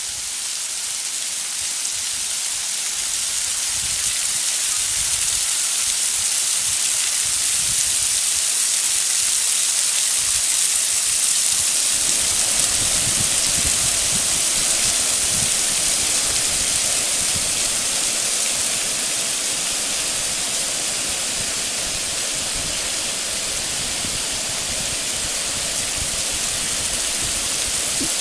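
Steady rush of water falling at a waterfall, a constant hiss-like noise. It grows fuller and deeper from about twelve seconds in.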